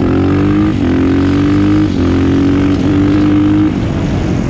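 Honda TRX400EX ATV's single-cylinder four-stroke engine pulling at full throttle. Its pitch climbs, dips briefly three times as it shifts up through the gears, then the throttle comes off a little before the end.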